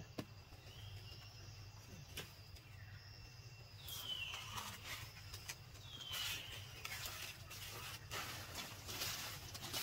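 Two high animal calls, each falling steeply in pitch, about 4 and 6 seconds in, over faint rustling and crackling. A low steady outdoor hum runs underneath.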